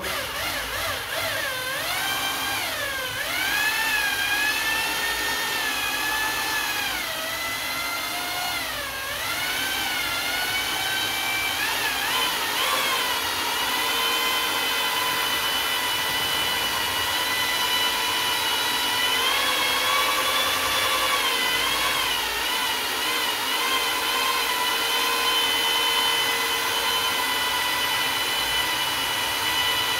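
Corded electric drill with a paddle mixer stirring emulsion paint in a bucket. The motor whine starts up, rises and falls with the trigger for the first dozen seconds, then runs at a steady speed.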